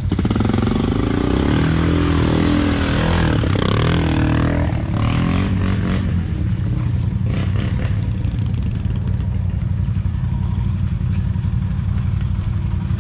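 ATV engines: one revs up and down repeatedly for about the first five seconds as it climbs through rocks and mud, over a steady low engine rumble that carries on after the revving stops.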